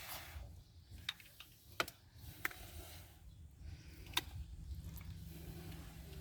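Scattered light clicks and taps, about half a dozen spread irregularly, over a faint low steady hum.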